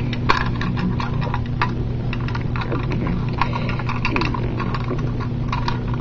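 Simplex 2099 fire alarm pull station being handled and closed up: a run of small clicks, taps and clinks, over a steady low hum.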